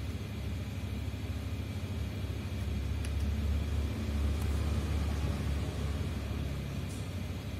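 Steady low rumble with a hum, swelling in the middle and easing near the end, with a few faint ticks.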